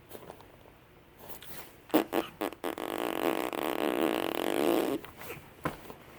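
A four-month-old baby making a rough, sputtering sound with the mouth for a little over two seconds, after a few short clicks.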